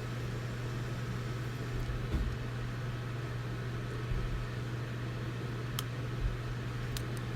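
Steady low electrical hum with a faint hiss. A couple of faint light clicks come near the end as the phone's plastic cover is worked off.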